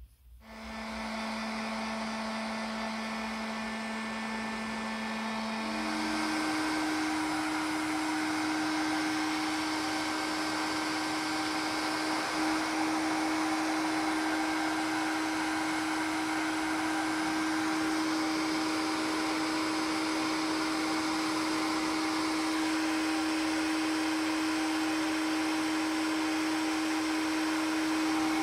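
Hot-air gun switched on and running, a steady fan hum over a rush of blowing air. About six seconds in it steps up to a higher, louder setting. It is heating a pasted spot on a metal lamp top for soldering.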